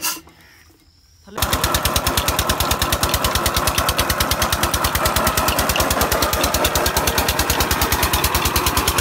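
Single-cylinder 'Peter' diesel engine running a belt-driven tube-well water pump, with a rapid, even exhaust beat that starts abruptly about a second and a half in.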